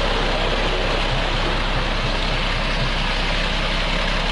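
Concrete mixer truck's engine running steadily at a constant level.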